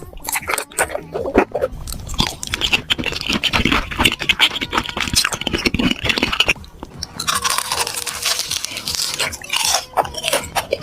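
Crunchy food being bitten and chewed, a dense, irregular run of crackling crunches with a short pause partway through.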